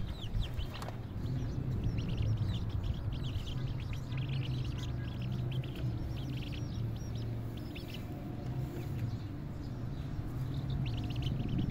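Young domestic chicks peeping: clusters of quick, high cheeps, over a low steady rumble.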